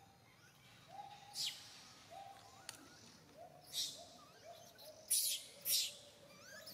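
Baby macaque crying: a string of short, even-pitched coos, coming faster as it goes on, broken by four loud, harsh screams, the loudest two about five to six seconds in. These are the distress cries of an infant kept from nursing.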